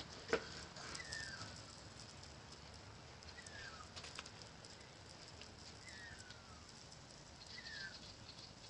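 An animal calling again and again, about five short falling calls spaced a second and a half to two and a half seconds apart, with a single sharp click about a third of a second in.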